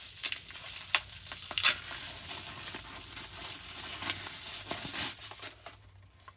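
Bubble-wrap packaging crinkling and crackling in the hands as a small aluminium tin is unwrapped, with many sharp little clicks. It stops about five and a half seconds in.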